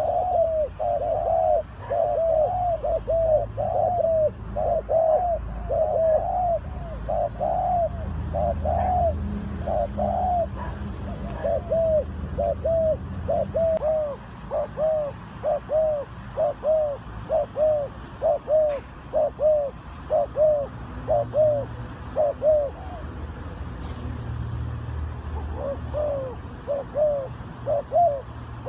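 Spotted doves cooing: a long run of short, rounded coo notes repeating about twice a second, with a brief pause about three-quarters of the way through, over a low rumble.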